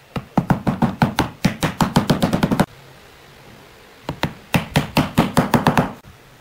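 Soft-faced mallet tapping small round wooden inlay discs into holes in a wooden tabletop: two runs of quick light knocks, about six a second, with a pause of over a second between them.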